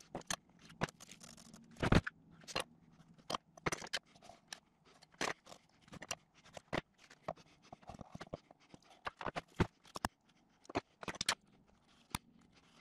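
A run of irregular sharp clicks, taps and light scrapes from hand work with tools on wood, over a faint steady low hum.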